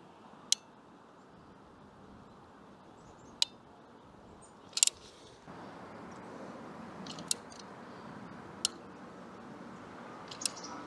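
Caulking guns clicking sharply about six times, a second or three apart, as their triggers are worked to squeeze adhesive onto solar-panel mounting feet. Under the clicks is a faint steady hiss that grows louder about halfway through.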